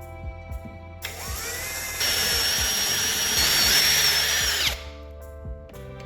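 A handheld electric power tool, like a drill, spins up with a rising whine about a second in. It runs loud and steady, getting louder about two seconds in, and winds down with a falling whine near the end. Light background music with plucked notes plays throughout.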